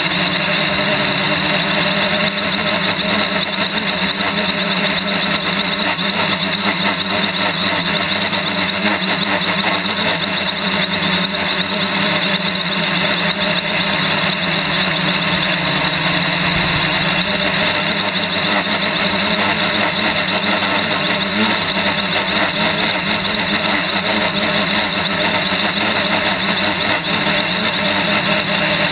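Quadcopter's four electric motors and propellers whining steadily in flight, heard from a camera mounted on the frame, with a rush of air from the prop wash.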